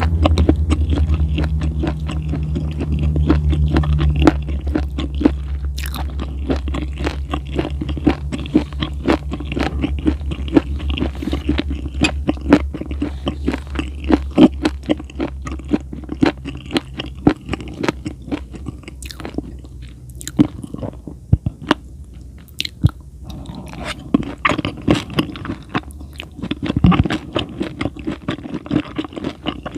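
A person chewing and biting food close to the microphone: a dense run of wet clicks and crunches with no pause.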